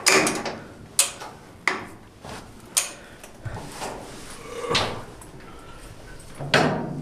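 A string of sharp knocks and clunks inside a steel submarine compartment, about six of them at uneven spacing, each ringing briefly.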